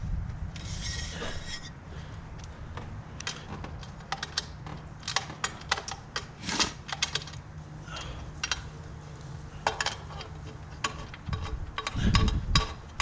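Hand work on intake parts: a string of irregular clicks, taps and rubs as the ETS intake's coupler and piping are pushed and worked into place, over a low steady rumble.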